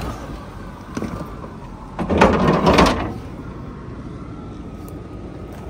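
Lexus LX470 moving slowly on a rough desert trail with a faint steady whine. There is a sharp click at the start, and about two seconds in a loud, rasping noise lasts about a second.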